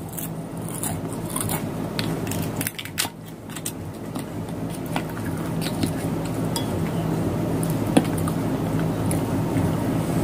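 Eating sounds: chewing, and a wooden fork clicking and scraping against a ceramic bowl while stirring soup noodles, with a sharper clink about eight seconds in. A steady low hum runs underneath, picked up because the external mic was not plugged in.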